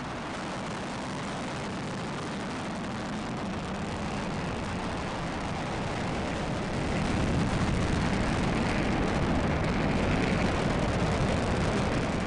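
Falcon 9 rocket engine noise after liftoff, heard from a distance as a steady rumble that grows louder about seven seconds in.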